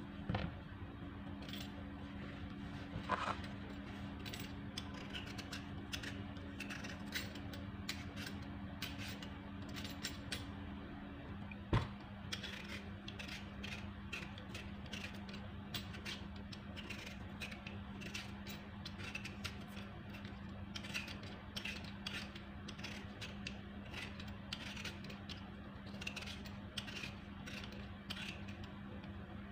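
Hand vegetable peeler scraping the skin off a potato in many short, irregular strokes, with a single sharp knock about twelve seconds in.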